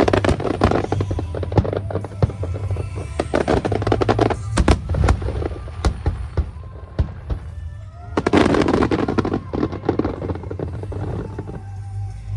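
Aerial fireworks going off: many sharp bangs, with spells of dense crackling near the start, around three seconds in and around eight seconds in. Music with a steady bass plays underneath.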